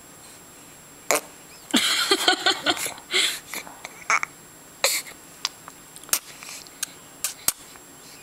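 Five-month-old baby making wet mouth noises with his fingers in his mouth: a spluttering burst about two seconds in, then a string of sharp lip smacks and clicks.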